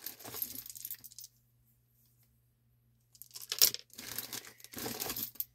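Rustling and clattering as wooden bead necklaces are handled, with the beads clicking against each other. It comes in two spells with a quiet gap of about two seconds between them, and there is one sharp click early in the second spell.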